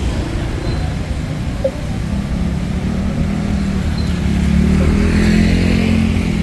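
Street traffic: a steady rumble, with a motor vehicle's engine drawing close and passing, loudest about five seconds in.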